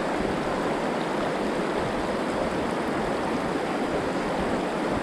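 Shallow river running steadily over a stony bed, a constant rushing of water with no breaks.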